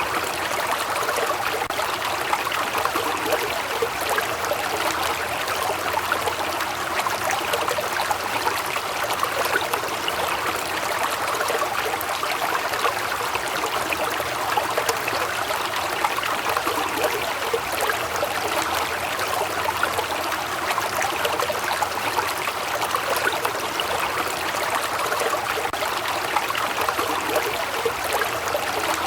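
Waterfall: water falling and rushing in a steady, unbroken splash.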